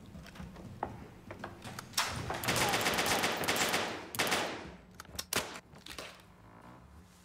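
Sound effects on a short film's soundtrack: a loud, dense rattling burst lasting about two seconds, then a few sharp cracks, before it falls quieter.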